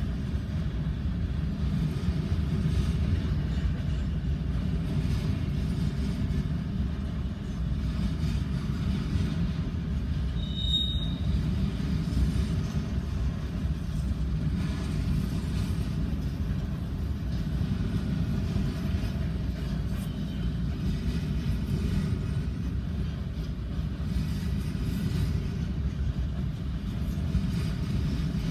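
CN manifest freight train rolling past: a steady low rumble of wheels on rail, with one brief high-pitched wheel squeal about eleven seconds in.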